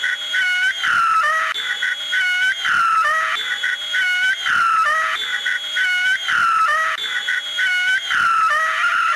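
A high, cartoonish voice screaming over and over, about six screams of a bit over a second each, one after another: the cries of pain of a gummy bear character with its leg caught in a steel bear trap.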